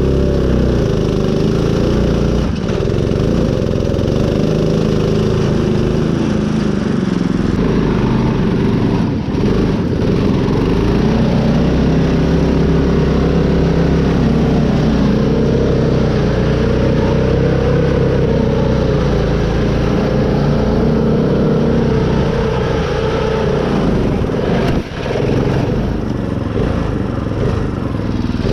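Custom Craftsman mud mower's engine running under load through mud, its pitch rising and falling in slow waves as throttle and load change. A few brief knocks sound over it.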